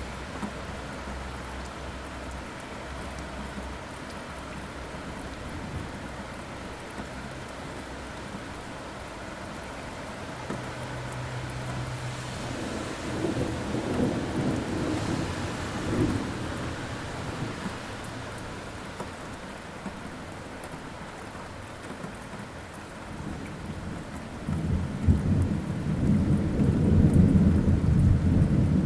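Steady rainfall with rolling thunder: a rumble builds and fades about halfway through, and a louder, deeper peal of thunder rolls in near the end.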